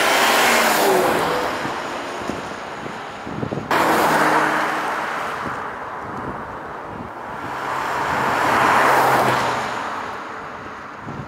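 2001 Jaguar XKR convertible with a supercharged V8 driving past, engine and tyre noise swelling and fading as it passes. A sudden cut a few seconds in jumps to a second pass, which swells again near the end.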